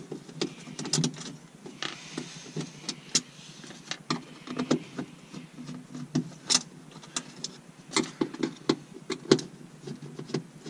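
Hand screwdriver turning screws out of a pressed-steel fuel pump access cover, with irregular clicks and scrapes as the tip works in the screw heads and the screws turn in the metal.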